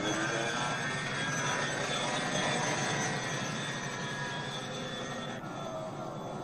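T-34-85 tank's diesel engine running: a steady, dense engine rush with a faint whine that rises and falls, easing off about five and a half seconds in.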